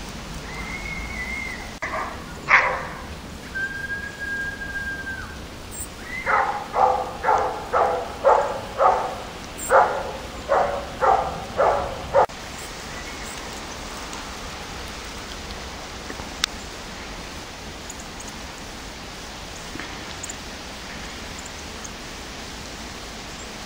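A dog whines twice in long, steady high notes, with one sharp bark between them. It then barks about eleven times in an even rhythm of roughly two barks a second, stopping about halfway through.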